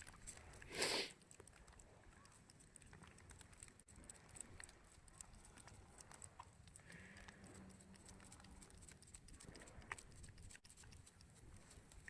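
Near silence: faint outdoor background with scattered small clicks, and one brief noisy burst about a second in.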